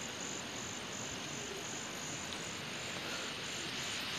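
An insect, such as a cricket or cicada, calling in a high pulsing trill about three times a second over a steady outdoor hiss.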